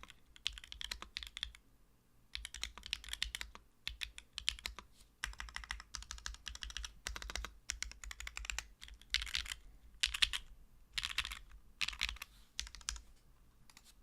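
Custom PC Kohaku mechanical keyboard being typed on, with Zi Yuan switches on an aluminium plate, leaf-spring gasket mount, no foam and GMK Nimbus keycaps. Quick runs of keystrokes with short pauses between them.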